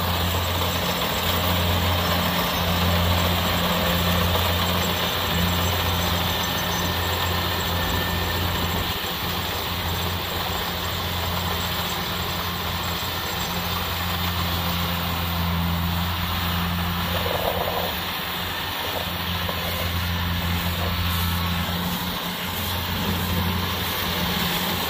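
Kubota DC-70 Plus combine harvester's diesel engine running steadily while the machine cuts and threshes rice, a constant low drone with mechanical noise over it.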